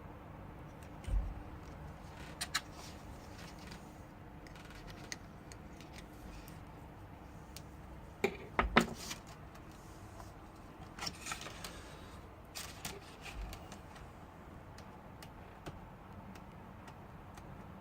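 Scattered small clicks and taps of hands handling laptop parts during a screen repair, with a cluster of sharper knocks about eight to nine seconds in, over a faint steady hum.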